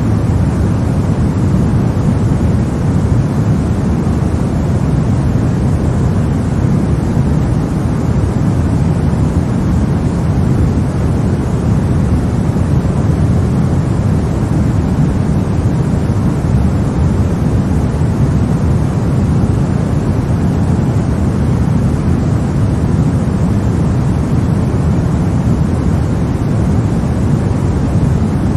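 Steady, unchanging sleep noise with most of its energy in the low end, so it sounds like a deep rush rather than a bright hiss.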